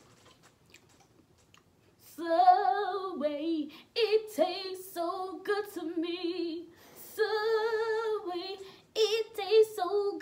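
A woman singing unaccompanied, starting about two seconds in: several drawn-out phrases of long held notes with vibrato.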